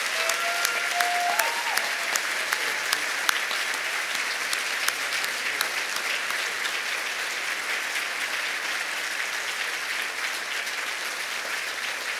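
Audience applauding: many people clapping steadily, easing off slightly toward the end.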